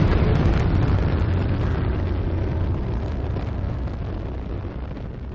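Deep rumbling roar of a spaceship's rocket engines amid a dust cloud. It is a designed sound effect, with a few sharp crackles in the first second, and it fades steadily away.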